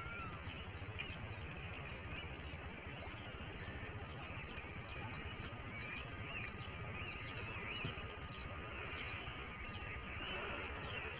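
Several birds chirping and calling, with quick high chirps repeating many times a second and slower gliding whistled calls, over a steady outdoor background hiss. A thin steady high tone runs through the middle of it.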